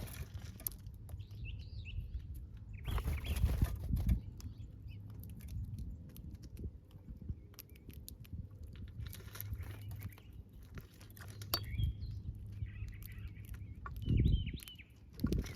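Small garden birds chirping in short, scattered calls over a steady low rumble, with a few louder rustling bursts.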